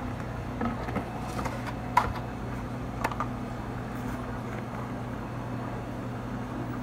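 Steady low electrical hum of café equipment, with a few light clicks and knocks from bottles being handled and set down on the counter in the first few seconds.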